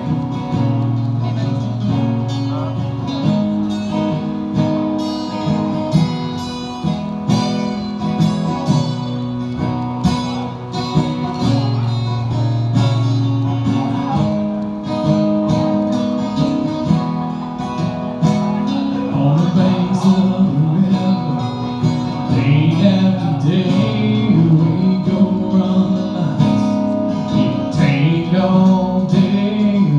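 Two acoustic guitars strumming and picking chords together; from about twenty seconds in, a man sings over them.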